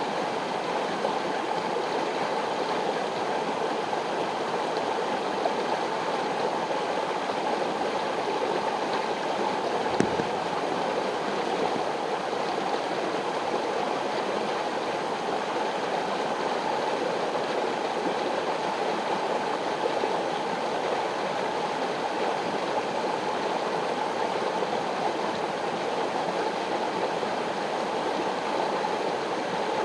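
Mountain river rushing steadily over rocks, with one brief click about ten seconds in.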